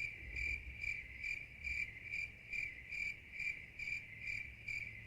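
Insect chirping in a steady rhythm, about two chirps a second, each a high pulsing tone, over a faint low hum.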